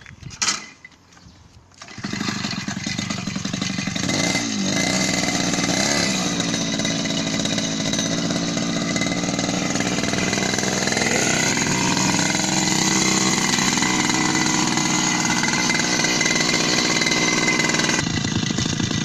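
Small two-stroke grass-cutter engine on a bicycle starting up after a brief sharp sound and running, its pitch rising and falling as it is revved.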